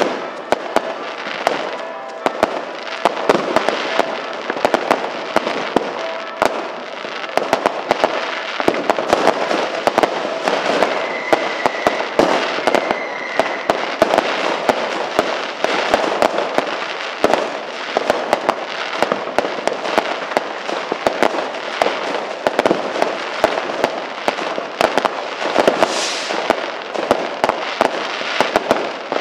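Many fireworks and firecrackers going off at once: a dense, unbroken run of sharp bangs and crackling over a constant haze of more bangs.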